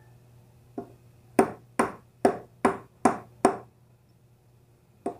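Hammer blows on metal driving a greased bearing into place in a bicycle hub: a light tap, then six sharp metallic strikes about two and a half a second, each ringing briefly, and another light tap near the end.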